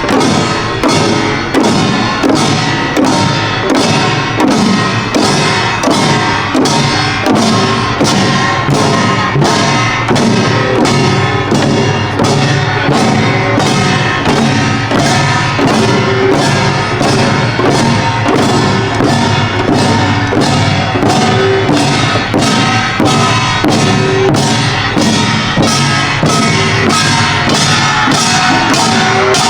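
Korean pungmul percussion band playing in the Imsil Pilbong nongak style: hand gongs and drums beating a steady, driving rhythm of about one and a half strong beats a second, with metallic ringing.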